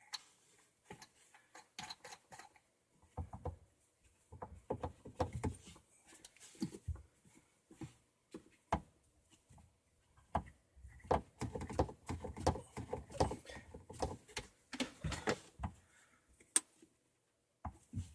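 Plastic plumbing fittings being handled and hand-tightened under a sink: irregular clicks, taps and rubbing as PVC shut-off valves and their nuts are screwed onto the supply pipes.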